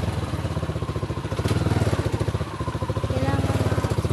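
Small motorcycle engine idling nearby with a fast, even putter that holds steady throughout.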